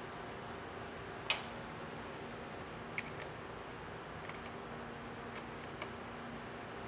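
Scattered light clicks and ticks of a small hand tool and fasteners being worked at the valve-cover bolts on a motorcycle's aluminium cylinder head, over a faint steady hum. The sharpest click comes about a second in.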